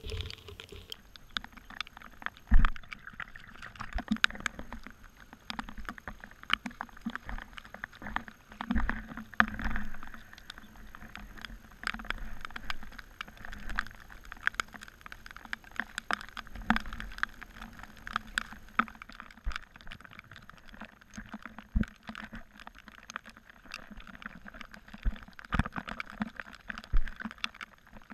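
Muddy runoff water flowing shallowly across a flooded field close to the microphone, gurgling and splashing, with many sharp drips and splashes and a few louder low thumps.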